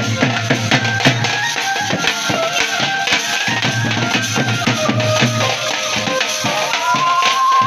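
Music with busy drum and jingling percussion strokes under a held melody line that slides up in pitch near the end.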